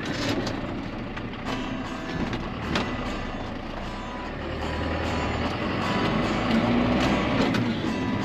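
John Deere 6430 tractor's four-cylinder diesel engine running under way, heard from the cab, with occasional knocks and rattles. The engine grows louder about five to six seconds in.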